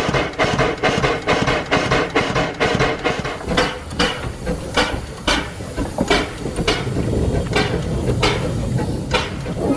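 Vale of Rheidol narrow-gauge 2-6-2 tank steam locomotive No. 1213 working along the line, its exhaust beating in a quick close run for the first three seconds, then slower, about one and a half beats a second.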